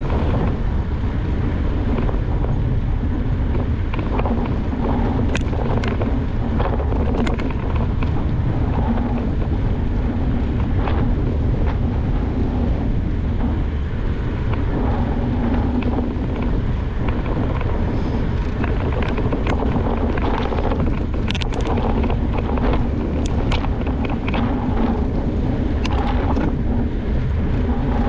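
Wind rushing over the microphone of a GoPro on a moving mountain bike, with a steady low rumble and scattered sharp clicks and rattles.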